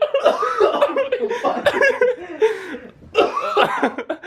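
Young men laughing and chuckling, with some speech mixed in.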